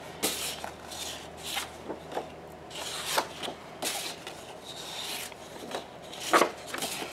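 Sheets of double-sided scrapbooking paper shuffled and slid over one another by hand: a run of irregular papery swishes and rubs, with a louder swish about six seconds in.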